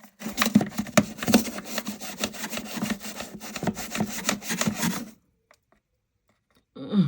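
Rapid scrubbing and rubbing strokes while cleaning the inside of a front-loading washing machine, which stop abruptly about five seconds in.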